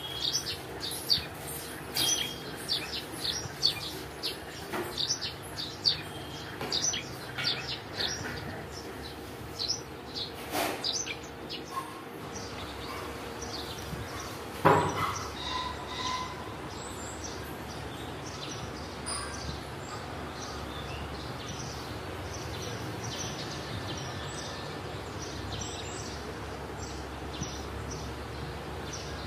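Small birds chirping, many quick high falling chirps over the first half, then fewer, over a steady low background hum. A sharp knock about fifteen seconds in is the loudest sound.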